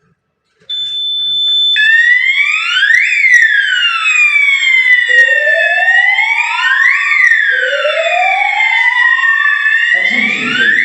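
Fire alarm sounder, driven by a Ravel fire control panel under test, going off. A steady high beep starts under a second in, then an electronic siren tone sweeps up and down about once every four seconds. A recorded evacuation voice message begins near the end.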